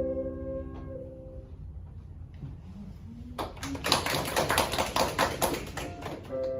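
A few held musical notes ring out and fade in the first second or so. Then, about three and a half seconds in, a quick clatter of sharp taps, many a second, runs for nearly three seconds and stops.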